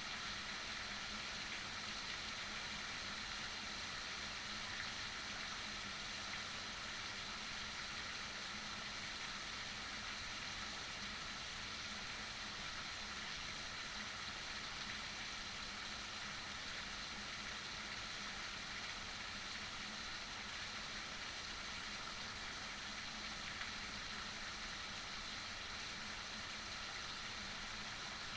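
Heavy rain falling steadily, an even hiss with no change in strength.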